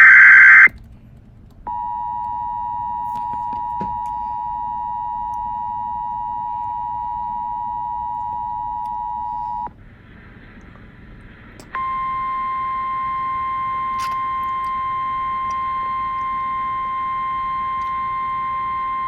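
Emergency Alert System signalling. It opens with a short, very loud electronic data burst, the tail of a SAME header. About two seconds in, the EAS two-tone attention signal begins and holds steady for about eight seconds. After a short gap, a single steady warning tone from NOAA Weather Radio starts and holds; it announces a warning message.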